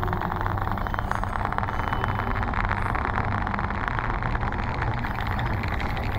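Steady rumbling, noisy sound score with a low hum and a dense fine crackle, resembling engine or traffic noise.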